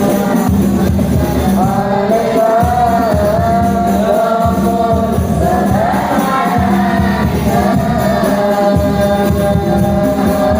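A child singing an Islamic devotional song praising the Prophet (sholawat) in a high, wavering melody over steady musical accompaniment.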